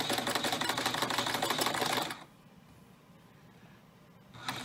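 Singer 5528 sewing machine stitching under foot-pedal control, a rapid clatter of needle strokes; it stops about two seconds in and starts again just before the end.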